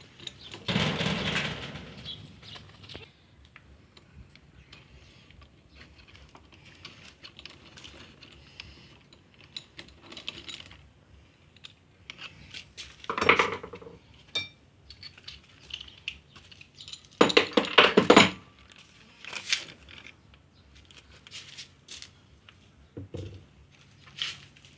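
Metal hand tools and engine parts clinking and clattering on a workbench while a Jawa 634 motorcycle engine is being taken apart. Louder clusters of rattling come about a second in, about halfway through and again a few seconds later.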